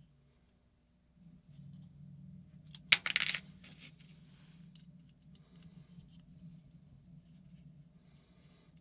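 A small metal object drops onto a hard surface about three seconds in: one sharp clink followed by a short ringing rattle as it settles. Faint handling clicks of small parts come before and after.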